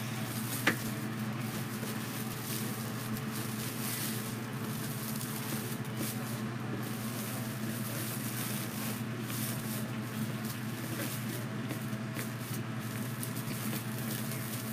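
Foil deco mesh rustling and crinkling softly and unevenly as hands press and tuck the layers into a wreath, over a steady low hum.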